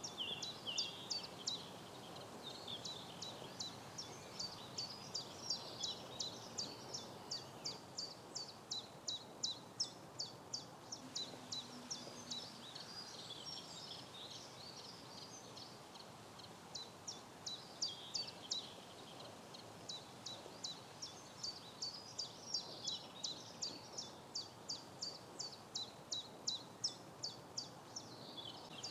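A bird calling outdoors: a long run of short, sharp, high calls repeated about three to four times a second, pausing briefly a couple of times before starting again.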